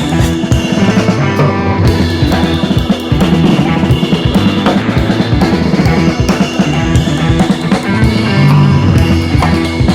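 Rock music with drum kit, bass and guitar, at a steady beat.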